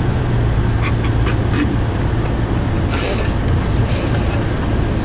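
Steady low rumble of a bus's engine and road noise as heard inside the cabin, with a few short clicks early on and two brief hisses about three and four seconds in.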